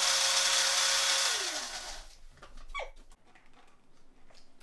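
NutriBullet blender motor running steadily with a high whine while blending pesto, then switching off about a second and a half in, its pitch falling as it spins down. A few light clicks and knocks follow as the blender cup is handled.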